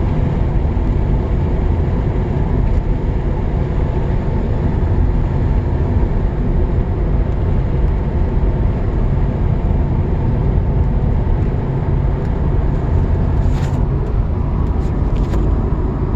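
Lancia Thema 8.32's Ferrari V8 running at a steady speed under way, an even low drone mixed with road rumble, with no rise or fall in revs. A few faint clicks come near the end.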